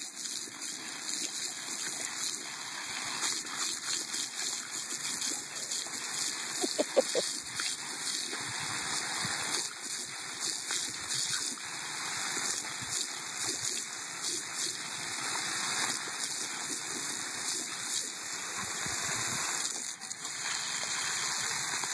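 Garden hose spray nozzle jetting water onto grass, splashing and spattering steadily as a dog snaps at the stream. A brief squeak stands out about seven seconds in.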